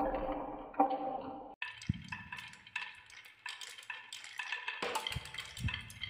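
Glass marbles rolling through a wooden marble run, rumbling along the wooden track and clinking against the wood and each other. About one and a half seconds in the sound cuts to a quick run of sharp clicks, each with a short ring, as more marbles knock together.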